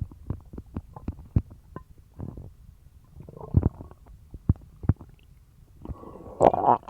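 Human stomach gurgling and rumbling: a string of small pops and clicks with short gurgles, then a longer, louder gurgle near the end. The sounds of an upset stomach with a bellyache after eating dog treats.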